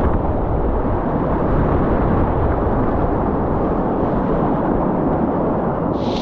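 Rushing whitewater of a high-water river, a loud, steady, muffled roar heavy in the lows. Near the end a brighter hiss of water comes in on top.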